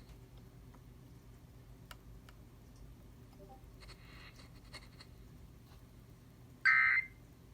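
Low hiss and hum of a broadcast feed with faint clicks, then near the end one short, loud burst of Emergency Alert System SAME header data tone, the digital code that opens an alert.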